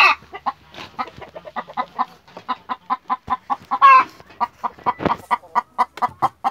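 Hen clucking in a quick, even rhythm, about five clucks a second, with two loud squawks: one at the start and one about four seconds in. It is a broody hen protesting as a hand tries to push her off her nest.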